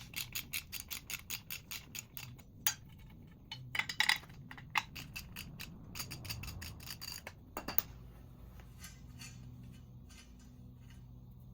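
Hand ratchet with a deep-well socket clicking rapidly, about six clicks a second, as a bolt is backed out of the wheelbarrow's leg, followed by a few scattered metal clicks and knocks.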